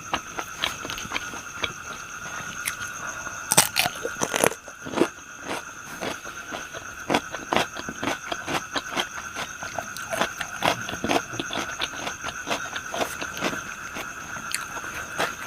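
Close-up chewing of crispy deep-fried pork intestines: many quick crisp crunches and bites in an uneven rhythm, with a steady high-pitched tone in the background.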